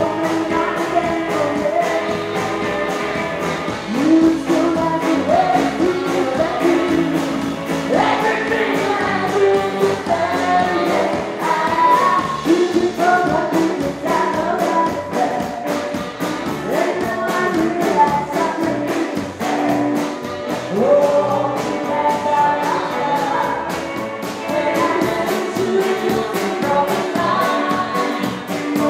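Live rockabilly band playing a song with singing over a steady drum beat.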